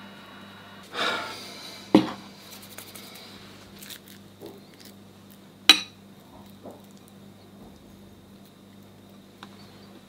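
Kitchen clatter of bowls and a pastry brush on a wooden board: a scrape about a second in, a sharp knock at about two seconds, and a bright glassy clink just before six seconds as a glass bowl is set down, with a few lighter taps, over a faint steady hum.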